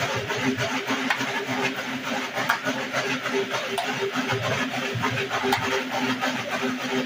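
Dog running on a slatmill: the rolling slats clatter and rumble in a steady, fast rhythm, with scattered clicks.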